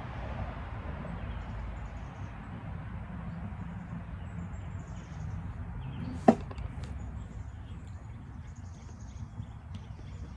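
Steady low rushing noise with one sharp click about six seconds in, as a cigar is being lit and drawn on.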